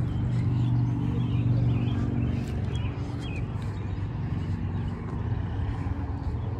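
Steady low hum of a motor vehicle's engine, strongest for the first two seconds or so and then easing off, with small birds chirping over it.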